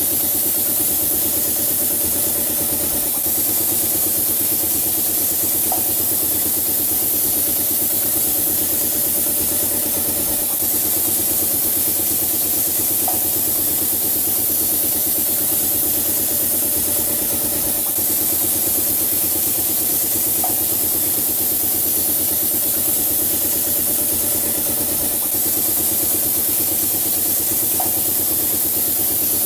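Motors of a student-built wall-painting machine running steadily, a constant mechanical hum with a brief chirp about every seven seconds.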